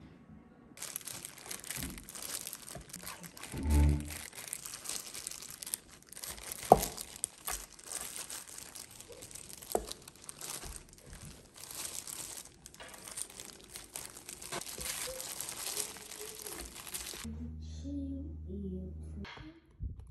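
A disposable plastic glove crinkling as raw boneless chicken thighs are handled and cut with kitchen scissors on a wooden cutting board, with scattered sharp clicks. The crinkling stops a few seconds before the end.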